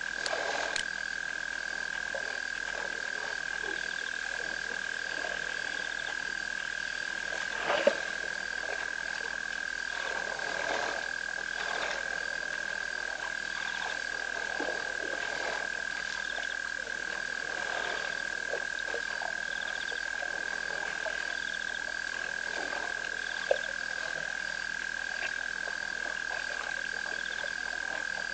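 Frog chorus: a steady, unbroken high-pitched trill with many scattered shorter calls over it. Two brief louder sounds stand out, about a quarter of the way in and again about four-fifths of the way through.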